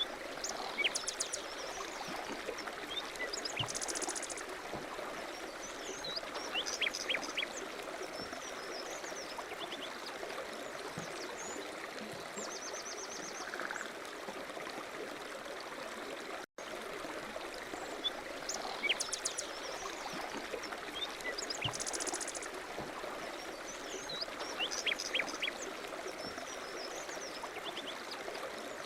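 Steady rushing of a flowing stream with small birds chirping and trilling over it. About halfway through the sound cuts out for an instant, and the same stretch of chirps then repeats as a loop.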